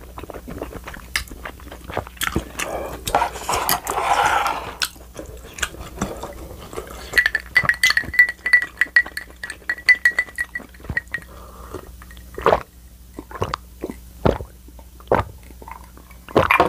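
Close-miked eating and drinking sounds: a spoonful of tteokbokki sauce being slurped and chewed, then sips from a glass mug of iced drink, with many small clicks and clinks of spoon, ice and glass and a couple of sharper knocks as things are set down.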